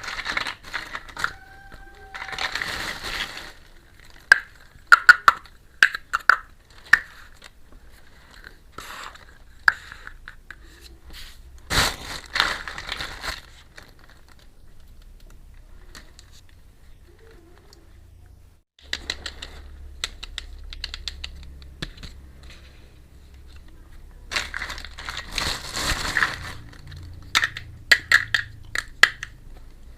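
Crinkling plastic packaging and sharp clicks and taps of small plastic toy kitchen pieces being handled, in several rustling bursts with scattered clicks between them.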